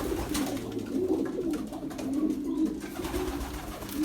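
Several pigeons cooing at once, overlapping low, wavering coos.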